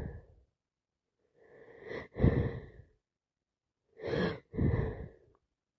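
A woman with a heavy head cold sneezing twice, each wet sneeze led in by a quick catching in-breath. The first comes about two seconds in and the second near the end.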